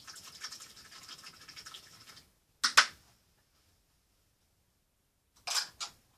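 Paintbrush bristles scrubbed briskly and scratchily against a surface for about two seconds. They are followed by two sharp knocks close together and, near the end, two short scraping strokes.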